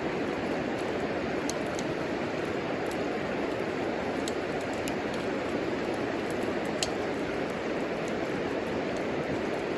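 Wood fire burning in a homemade wood stove: scattered sharp crackles and pops over a steady rushing noise, with the sharpest pop about seven seconds in.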